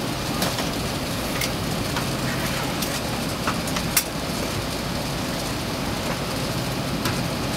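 Steady cabin noise inside an Airbus A380 taxiing after landing, a constant rushing hum with a few scattered sharp clicks, the loudest about four seconds in.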